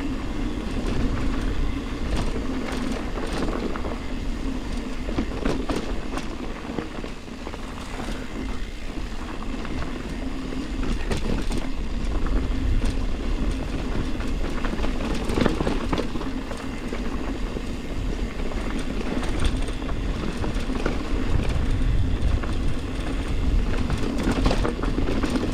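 Yeti Ripmo full-suspension mountain bike descending dry, loose dirt singletrack at speed. The tyres roll over the dirt under a steady rush of wind on the microphone, with frequent rattles and clacks from the bike over bumps.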